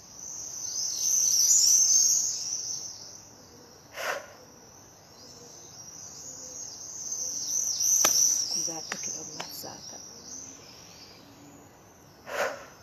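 A dense chorus of high, shrill chirping swells loud twice and fades back in between. Two short rushes of breath are heard, about four seconds in and again near the end.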